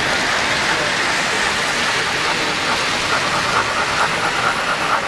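O-gauge model trains running on three-rail track: a steady rushing hiss of wheels and motors. A light, rapid ticking joins in about three and a half seconds in.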